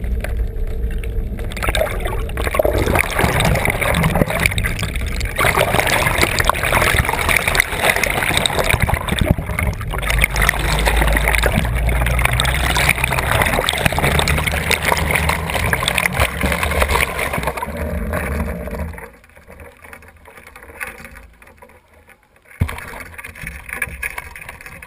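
Sightseeing boat's engine and propeller noise heard underwater, a loud steady rumble and churn mixed with gurgling water around the camera. It drops away about nineteen seconds in, and a sharp knock follows near the end.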